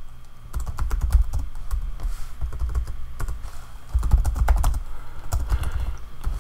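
Typing on a computer keyboard: quick key clicks in two runs with a sparser lull between.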